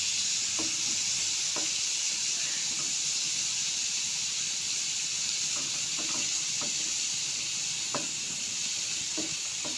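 Diced beetroot frying dry in oil and spices in a metal kadai on a gas stove, a steady sizzle. A few light clicks of a metal spoon against the pan come through it.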